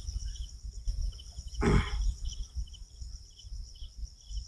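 Insects chirping in a steady, repeating pattern over a constant low rumble. About one and a half seconds in there is one short, rough noise.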